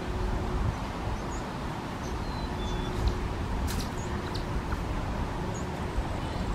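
Outdoor ambience: steady low rumbling background noise with a faint steady hum, with a few short, faint high bird chirps scattered through it and a few brief clicks a little before the middle.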